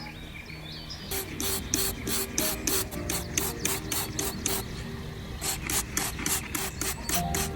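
Quick back-and-forth rubbing strokes, about four or five a second, in two runs with a short break a little past the middle. Soft background music plays underneath.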